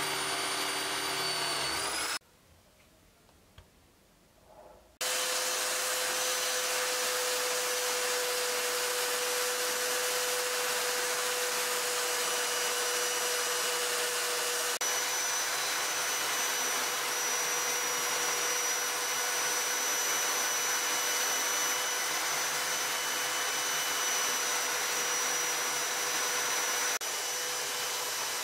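Ingco angle grinder clamped in a vise running steadily with a high whine, stopping for about three seconds of near silence shortly after the start, then running again with sandpaper pressed against its spinning tapered spindle.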